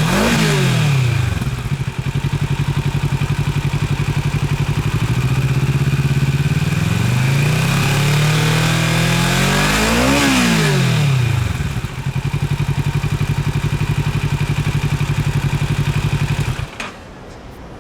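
Kawasaki Z650RS's 649 cc parallel-twin engine running through a TRICK STAR full exhaust system. Quick throttle blips come right at the start, then it idles. About eight seconds in, one slower rev rises and falls, and it settles back to idle. The engine sound stops shortly before the end.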